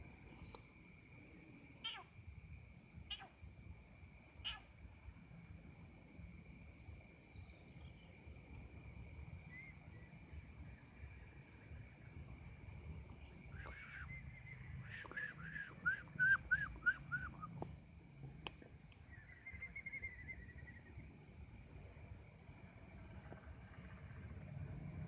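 Outdoor animal sounds: a steady high insect-like drone with a faint pulsing chirp above it, a few short chirps in the first seconds, and a quick run of about eight short falling calls around the middle.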